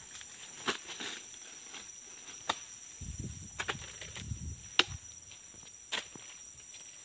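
Steady high-pitched insect drone, with footsteps on a dirt track and a few sharp knocks, the loudest about five seconds in.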